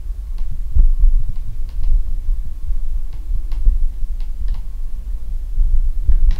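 Low rumbling and irregular thudding of a handheld camera's microphone being handled and moved about, with scattered faint clicks.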